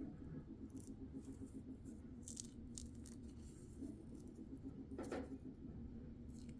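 Dried peel-off film being peeled from skin: scattered soft sticky crackles and ticks, the loudest about five seconds in, over a faint steady low hum.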